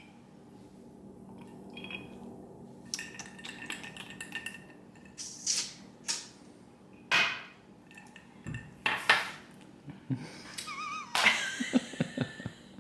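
Kitchen clatter of glassware, bottles and utensils: irregular clinks and knocks, the loudest clustered in the second half, as a cocktail is made.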